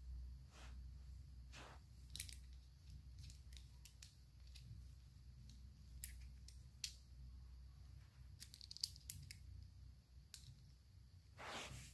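Faint handling noise: scattered light clicks and ticks of a small aluminium headset expansion plug and top cap being turned in the fingers, over a low steady hum, with a longer rustle near the end.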